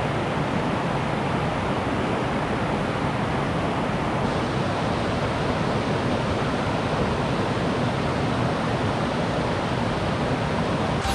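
Mountain stream rushing over rocks, a steady, even roar of water.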